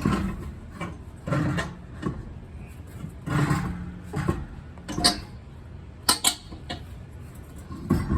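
Irregular clunks, scrapes and a few sharp metallic clicks as a car wheel and tyre is lifted and fitted back onto the hub studs.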